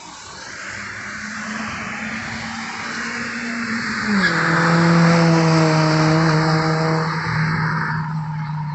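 Fiat Linea car driving by with its engine and exhaust note building. The note drops in pitch about four seconds in, is loudest just after, then fades.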